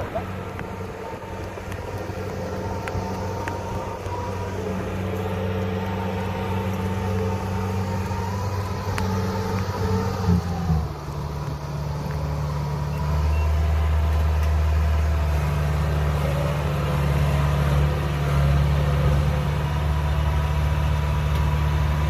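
Kubota DC-60 combine harvester's diesel engine running steadily. About ten seconds in, the drone changes abruptly, then becomes louder and closer as the machine works up to the edge of a concrete road.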